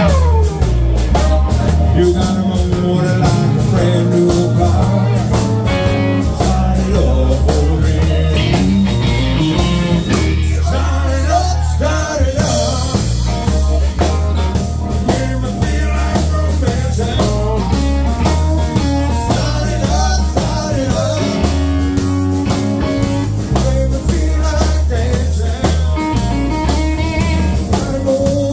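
Live blues-rock band playing a song: electric guitar and drum kit over a heavy, steady low end, at full volume.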